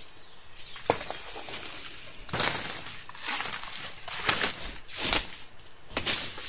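Leaves rustling and stems snapping as a person pushes and climbs through dense undergrowth and bamboo. It comes in irregular bursts, with a sharp crack about a second in.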